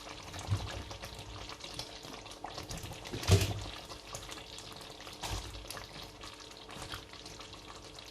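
Curry sauce bubbling and crackling in a pot as grilled chicken pieces are added, with small clicks and scrapes throughout and a loud knock about three and a half seconds in.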